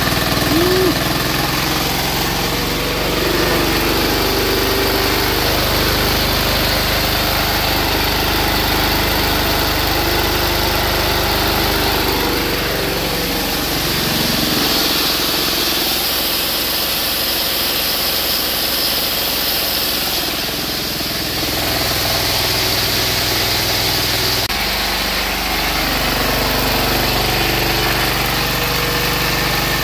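High-compression diesel engine converted to run on woodgas, running steadily with no sign of knock; its tone shifts a few times, about a third of the way in and again about two-thirds through.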